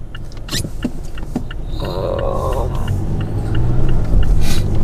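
Inside a car cabin: the engine and tyre rumble grow louder about three and a half seconds in as the car pulls away and gathers speed, with a fast, even ticking over it.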